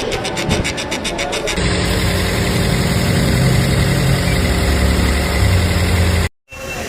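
Car engine running with a fast, even ticking of about six or seven clicks a second, then a steady low engine hum from about a second and a half in.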